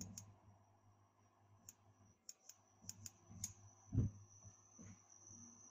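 Gas stove burner knob being turned, its igniter giving a string of sharp clicks, with a low thump about four seconds in.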